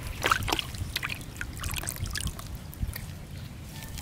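Water splashing and trickling in a plastic tub holding live fish, with short crackly splashes, several close together near the start.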